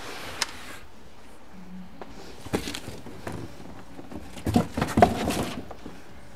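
A few scattered clicks and knocks, then a busier clatter of knocks about four and a half to five and a half seconds in.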